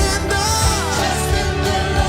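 Live gospel church band music playing, with a steady bass line under a melodic run that slides in pitch.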